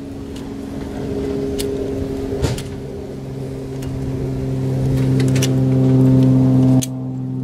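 A motor or engine running steadily with a low, even hum. It grows louder over a few seconds and then drops off suddenly near the end. A few light clicks sound over it.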